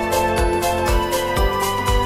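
Background music: held keyboard-like chords over a steady beat of about two thumps a second.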